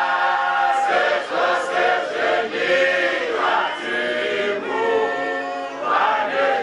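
A choir of several voices singing a gospel song.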